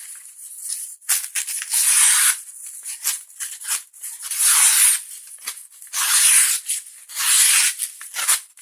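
Leatherman Wave's plain main blade, on its factory edge, slicing and shaving through a sheet of paper in a series of short, hissing strokes, about six of them.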